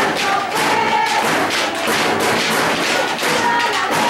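Drums beating rapidly under voices chanting and shouting, like a cheering section at a football game.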